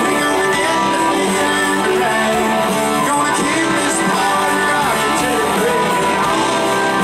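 A live rock band playing: strummed guitars with keyboard and bass under a man singing lead into the microphone.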